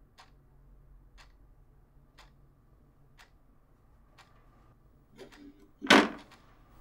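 A clock ticking about once a second, then a door thuds loudly near the end.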